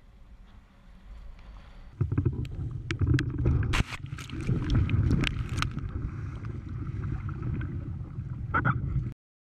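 Wind and water rushing past a camera on a windsurf foil rig, then about two seconds in a loud splash as the rig crashes into the water, followed by close splashing and sloshing water against the microphone.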